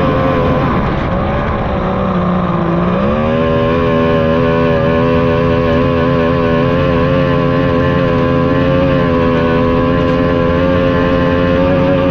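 A 60 hp outboard engine on a racing powerboat, heard on board at close range. Its pitch sags for a couple of seconds as the throttle eases off, climbs sharply about three seconds in, and then holds steady at high revs.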